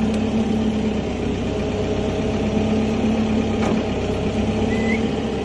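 An engine idling with a steady hum.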